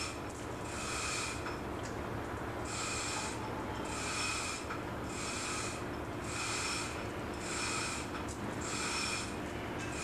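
Repeated hissing, rasping strokes about once a second, over a steady low machinery hum, during work on a marine two-stroke engine's main bearing.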